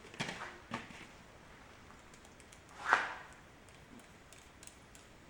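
Hand rivnut tool and small metal parts being handled: a few light clicks and knocks, with one louder knock about three seconds in.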